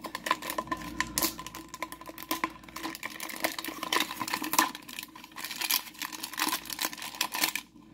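Crinkling foil blind-bag pouch being pulled open by hand, a dense run of irregular crackles that stops shortly before the end.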